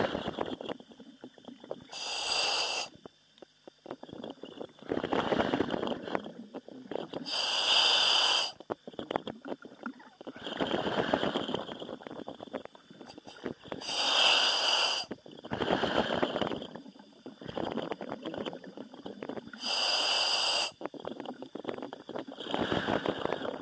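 A diver's breathing heard over the diving helmet's intercom. A hissing inhale through the demand valve alternates with a rougher exhale, about one breath every five to six seconds.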